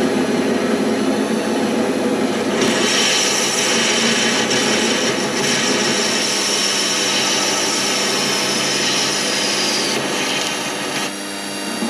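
Warco mini lathe running, with a parting tool cutting off the spinning workpiece. From about two and a half seconds to ten seconds a high cutting whine that slowly falls in pitch rides over the steady hum of the lathe.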